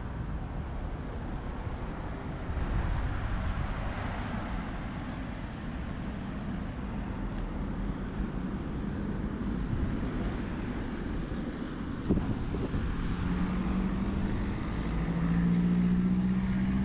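Street traffic noise, with a passing car's engine hum growing louder over the last few seconds.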